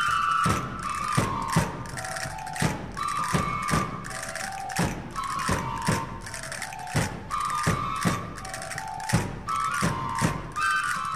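Traditional El Hierro dance music: a pito herreño (wooden flute) plays a high, repeating melody over steady drum beats and the clack of chácaras (large castanets).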